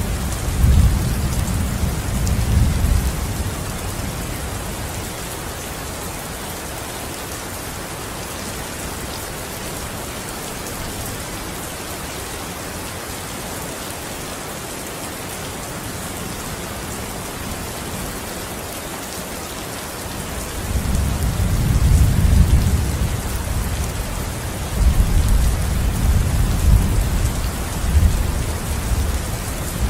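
Steady, even hiss of heavy rain falling. Low rumbles of thunder fade out over the first few seconds and roll in again from about two-thirds of the way through, in several swells.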